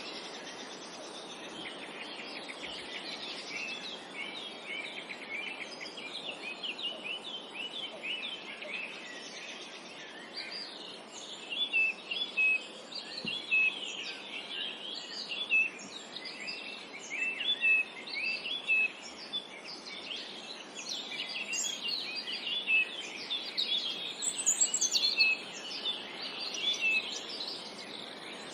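A chorus of songbirds chirping and trilling over a steady background hiss, with the calls growing busier and louder after about ten seconds.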